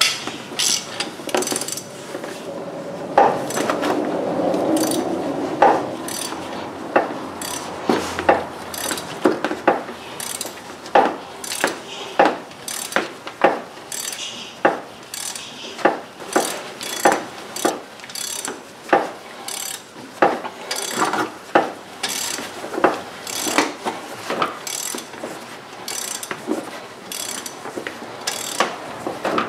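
Long 3/8-inch Tekton ratchet clicking in repeated short strokes, about one a second, as it turns the centre bolt of a harmonic balancer puller to draw the crankshaft pulley off.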